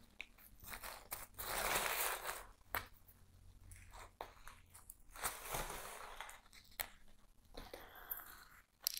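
Crinkling and rustling of a plant's white wrapping sleeve as it is pulled off a potted aglaonema, in two stretches with a few short clicks between them.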